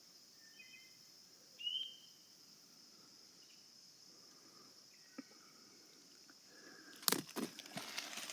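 Woodland ambience: a steady high insect drone with a few short bird chirps early on, then a burst of rustling and crunching near the end.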